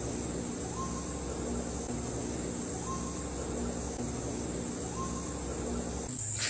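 Steady high-pitched chorus of crickets, with an unidentified short rising call repeated three times about two seconds apart, played as a loop that cuts off near the end.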